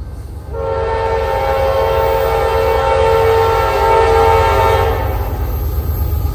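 CSX freight locomotive's air horn sounding one long blast of several tones together, starting about half a second in and cutting off after about four and a half seconds, over a low rumble from the approaching train.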